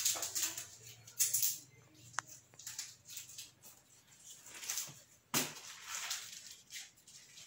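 Paper word cards rustling as they are handled and pressed flat against a wall, in short scattered bursts, with a small click about two seconds in and a sharper rustle about five seconds in.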